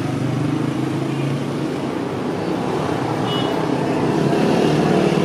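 Steady roadside traffic noise: motor vehicles running and passing on the street.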